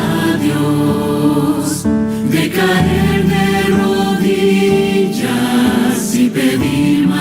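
Christian choral music: a choir singing held notes over accompaniment.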